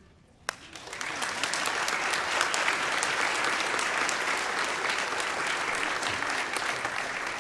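Congregation applauding: clapping swells over the first second and then holds steady. A single sharp click sounds about half a second in, just before the clapping starts.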